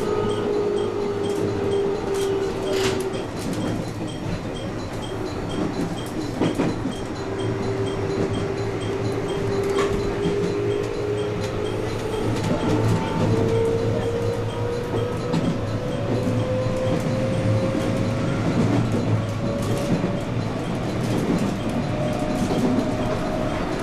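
JR West 221 series electric train running, heard from on board: a steady rumble with scattered rail clicks and a motor-and-gear whine. The whine sinks a little at first, then climbs steadily from about halfway through, as the train picks up speed.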